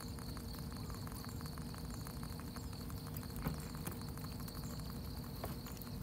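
Crickets chirping in a steady, rapid pulsing chorus over a low steady hum, with one faint knock about three and a half seconds in.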